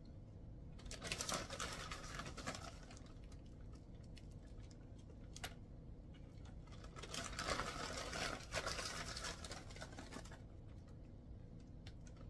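Plastic zip-top bag crinkling as a hand reaches in for crushed Oreo cookies, in two spells of a few seconds each, with a single click in between.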